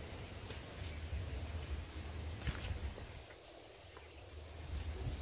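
Outdoor riverside ambience with wind rumbling on the microphone and a few faint bird chirps; the wind eases briefly a little past the middle.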